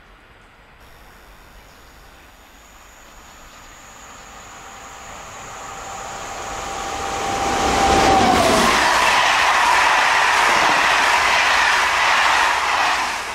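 Locomotive-hauled passenger train of grey coaches passing at speed: a rush that grows as it approaches, and a tone that drops in pitch as the locomotive goes by about eight seconds in. After that comes the steady loud wheel-and-air noise of the coaches streaming past.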